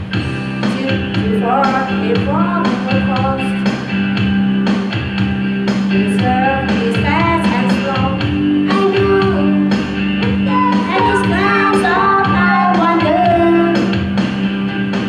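A girl singing into a karaoke microphone over a rock backing track with a steady drum beat and guitar; her sung phrases come in three stretches.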